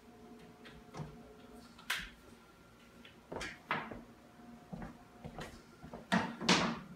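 Scattered knocks, taps and clatters of handling work as a long countertop edge-banding strip and tools are moved and set down on the laminate counter, with the loudest pair of knocks near the end.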